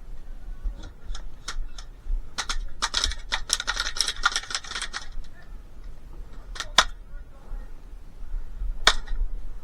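Airsoft guns firing: scattered snapping shots, then a rapid string of shots from about two and a half to five seconds in, then two single sharp cracks about two seconds apart near the end.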